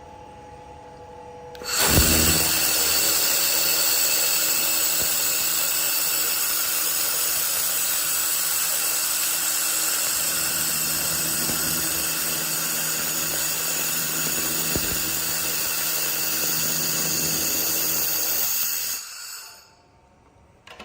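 A 2500-watt handheld laser welder with wire feed runs a weld on 6 mm steel plate at 60% power: a steady high hiss with a whine, starting about 2 seconds in and cutting off near the end.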